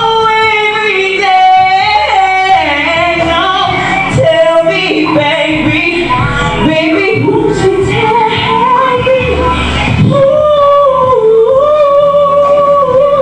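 A woman singing live into a handheld microphone, with quick runs that bend up and down, then long held notes from about ten seconds in.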